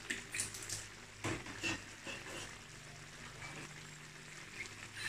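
Thick chilli sambal sauce sizzling and bubbling in a wok, a steady soft hiss with scattered small pops and crackles, a few sharper ones in the first two seconds.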